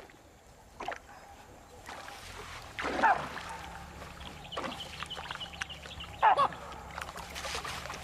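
Baboons calling: two short, wavering cries, about three seconds in and again just after six seconds, over water splashing and sloshing.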